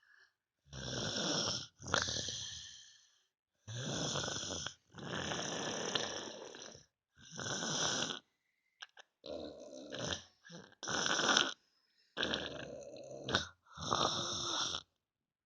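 Heavy snoring, loud enough to be called 'like a tank': about ten rough snoring breaths, each lasting around a second, with short silent gaps between them.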